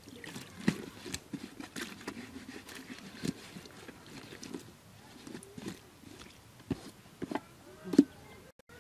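Irregular glugs, splashes and plastic knocks as water is poured from a plastic jug into a plastic bottle fitted to a corrugated hose. The loudest knock comes near the end.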